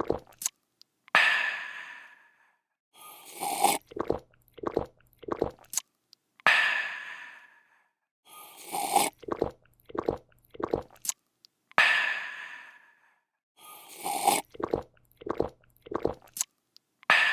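A person drinking, looped: a slurp, a few quick gulps, then a long breathy "aah" of refreshment that fades out, the whole cycle repeating about every five seconds, three times over.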